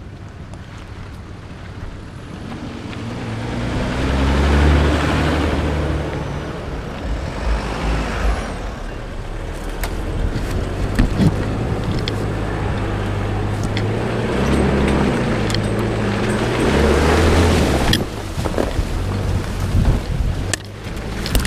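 Off-road 4x4's engine running under load, its revs rising and falling as it drives over a rough dirt track, with wind rush on the outside-mounted microphone and a few sharp knocks and jolts near the end.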